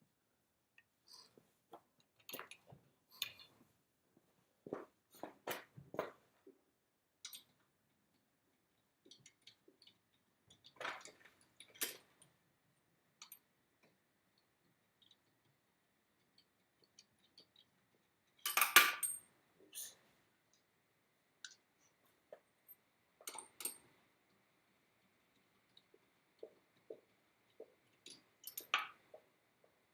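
Scattered clicks, clinks and knocks of tools and hardware being handled during a car wheel swap, the loudest a short clattering burst about two-thirds of the way in. A faint steady high tone runs under the second half.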